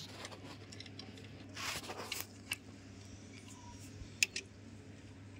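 Socket wrench undoing the rocker-arm assembly bolts on a Cummins KT1150 diesel's cylinder head, taken apart for a blown head gasket: faint metal clicks, a short rasp about two seconds in, and a pair of sharp metallic clicks a little after four seconds.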